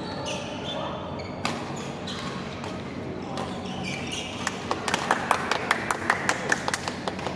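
Badminton play in a large hall: shoe squeaks on the court mat, then a rapid run of sharp racket-on-shuttlecock hits through the second half, over the general hum of the hall.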